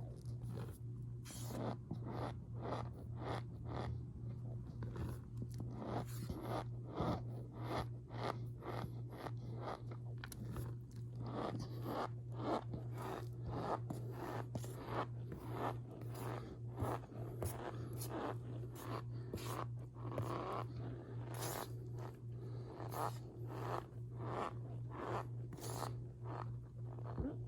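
Powdered starch pressed and squeezed by hand, giving a long run of short, irregular squeaky crunches, several every couple of seconds. A steady low hum runs underneath.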